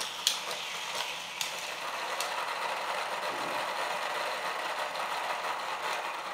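Hot Wheels booster's motor-driven wheels spinning with a steady whir, with sharp clicks about a third of a second, just under a second and a half, and about two seconds in as cars are fed through and launched. The booster runs on a 3-volt, 300 mA adapter, which limits how quickly it can launch cars one after another.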